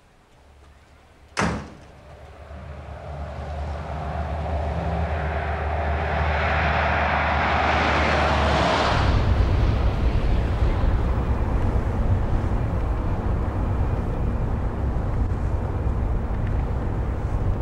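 A door slams shut once. Then a car's engine and tyres grow louder as it drives up at speed, giving way near the middle to a steady low engine rumble heard from inside the moving car.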